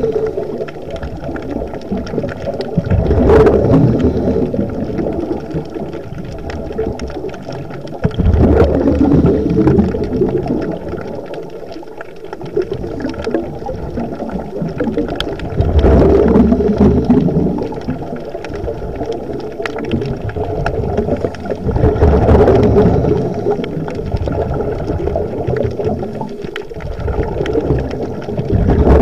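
Scuba divers breathing through their regulators, heard underwater: a low bubbling rumble of exhaled air that surges every five to seven seconds.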